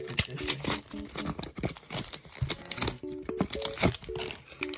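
Crinkly plastic and foil card packaging being handled and torn, with short keyboard notes of background music underneath.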